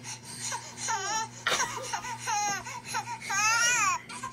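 A newborn baby crying in a series of wails, each rising then falling in pitch, the longest near the end.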